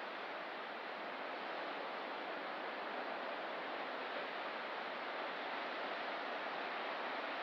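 Ocean surf heard as a steady, even wash with no separate wave breaks standing out.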